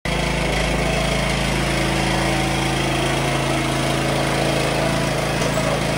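1988 John Deere RX75 riding mower's 9-horsepower Kawasaki engine running steadily as the mower is driven along.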